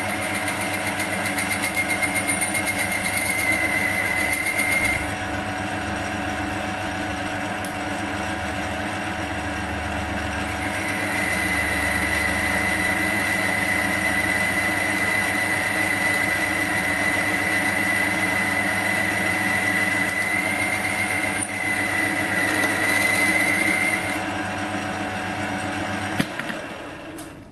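Paramount BLC-1016 metal lathe running with a steady hum while a high-speed-steel boring bar cuts dry inside the workpiece under power feed, with a high whine that drops out for a few seconds and then returns. The motor is switched off about a second before the end and the hum stops.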